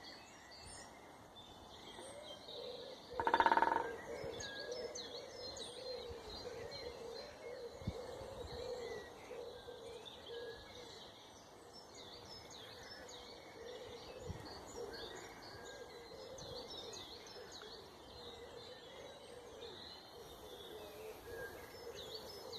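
Several wild birds chirping and singing, with a lower call repeating steadily underneath. About three seconds in, one loud, brief call stands out above the chorus.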